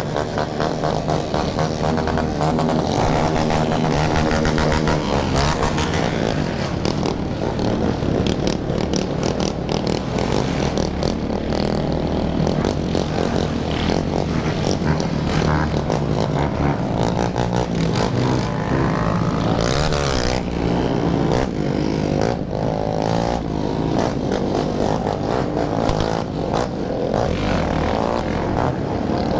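Many motorcycles running together, their engines overlapping, with repeated revs rising and falling.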